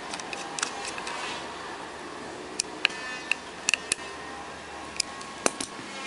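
Small screwdriver driving a screw into a dynamic microphone's handle: scattered sharp clicks and taps of the tool against the screw and body, most of them in the second half.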